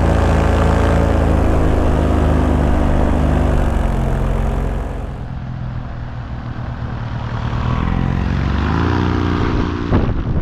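Paramotor engine and propeller running under power, throttled back about four seconds in and opened up again near the end.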